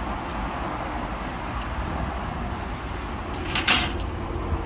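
Steady low background rumble, with one short rasping scrape about three and a half seconds in as the raw steaks are handled over the metal smoker grate and wire rack.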